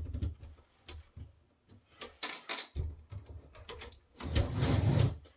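Hands handling the touchpanel's heavy steel assembly on a work surface: scattered light clicks and knocks, then a louder rushing noise lasting about a second, about four seconds in.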